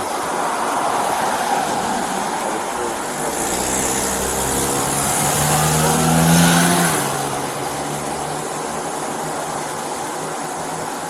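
A car driving past on the street, its engine note rising slightly as it approaches, loudest about six and a half seconds in, then fading away over steady traffic noise.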